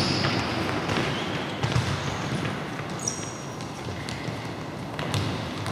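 Futsal ball being kicked and bouncing on a sports-hall floor, with scattered knocks and a couple of short high trainer squeaks on the floor, near the start and about three seconds in.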